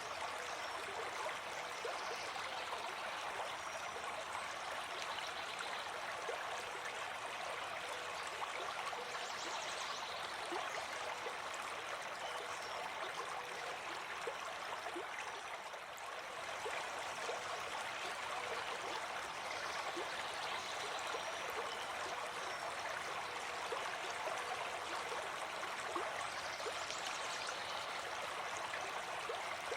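Running water flowing steadily, an even rush with fine trickling splashes through it.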